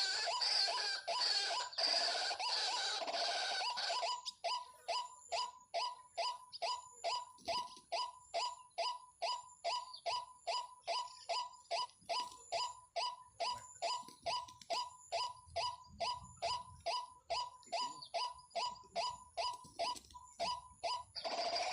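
Waterhen (jal murgi) calling. A dense run of overlapping calls for about the first four seconds gives way to a long, even series of short, harsh repeated notes, about two to three a second. The denser calling returns near the end.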